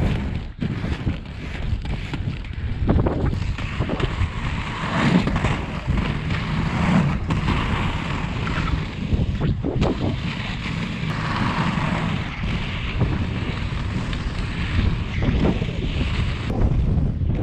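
Inline skate wheels rolling over rough asphalt: a steady gritty roar, with wind buffeting the action-camera microphone and scattered short knocks.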